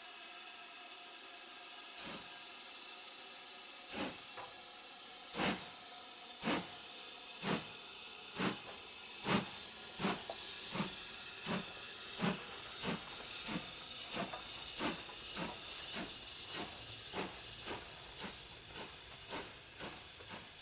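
BR Standard Class 5MT 4-6-0 steam locomotive 73082 starting its train: a steady hiss of steam, then exhaust chuffs beginning about two seconds in and coming faster and faster as it gathers speed.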